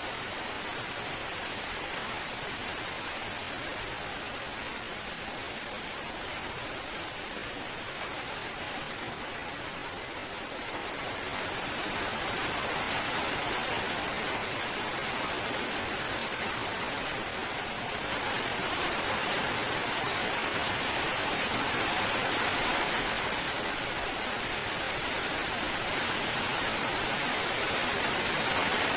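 Steady rain falling, a continuous even hiss that grows a little heavier about a third of the way in.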